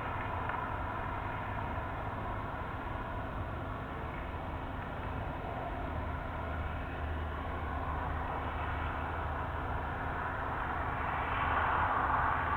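A steady rumbling drone with several faint held tones over it, growing louder near the end.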